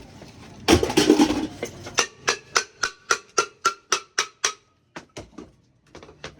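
Light hammer taps on metal, about three a second, with a faint ring after each. They follow a short clatter of metal about a second in and thin out to a few single taps near the end.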